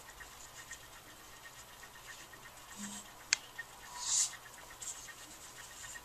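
Nylon paracord rustling and rubbing as hands thread it through a knot and pull it snug, a soft scratchy friction sound. A single sharp click about three seconds in and a louder brief swish of cord about a second later.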